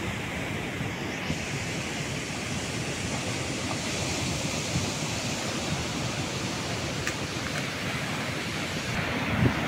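Sea surf breaking and washing against a rocky shore as a steady rush of noise, with wind on the microphone that gusts near the end.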